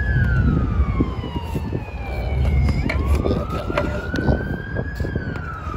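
Emergency-vehicle siren in a slow wail: the pitch falls, rises again about halfway through, then falls once more. Underneath are scattered clicks and knocks from a socket tool being worked onto an oxygen sensor in the engine bay.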